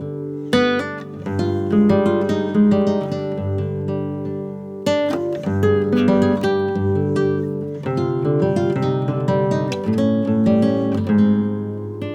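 Background music: acoustic guitar playing picked and strummed chords.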